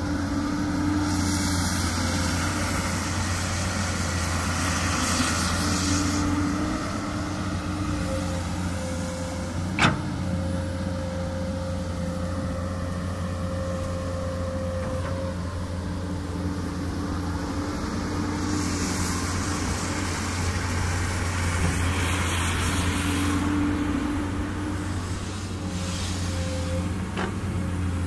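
Komatsu PC200 excavator's diesel engine running steadily, with two stretches where a stronger hiss rises over it as the machine works. A single sharp knock sounds about ten seconds in.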